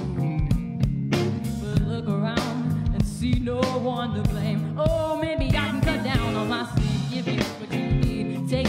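Live band playing electric guitar, bass guitar and drums, with a steady drum beat under a melodic line.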